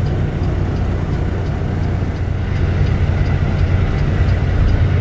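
Semi-truck diesel engine running steadily at low revs, heard from inside the cab as the tractor-trailer creeps back against the dock. A faint quick ticking, about three a second, sits above the engine hum.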